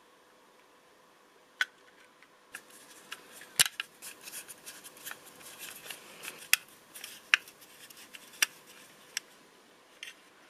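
A precision screwdriver and the plastic parts of a 1:24 scale model car being worked by hand: sharp plastic clicks and taps, the loudest about three and a half seconds in, with scraping and rustling between them.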